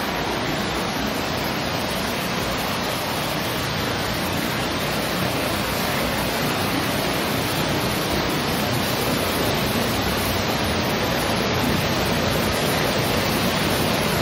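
Heavy rain pouring down with rushing floodwater: a steady, even rush of noise that grows slightly louder about five seconds in.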